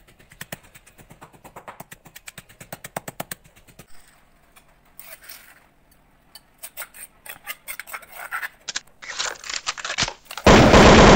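Pestle pounding chillies in a stone mortar: a fast, even run of sharp knocks, several a second, for the first three seconds or so. Then a spoon scraping the chilli paste out of the mortar, with scattered clicks and scrapes. Near the end a loud, steady hiss starts.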